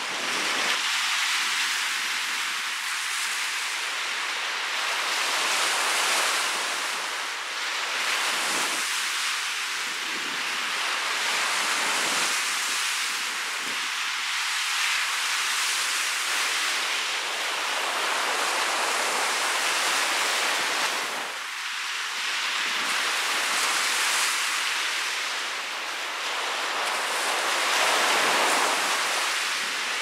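Lake surf breaking and washing up on a sandy beach in a strong wind: a steady rush of water noise that swells and eases every few seconds as each wave comes in.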